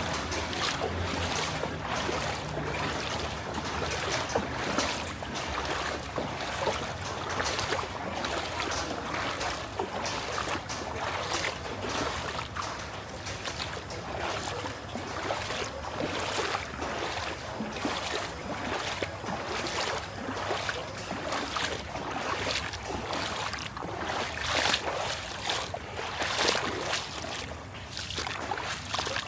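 Floodwater in a street splashing and sloshing in repeated surges, roughly one to two a second, over a continuous watery wash.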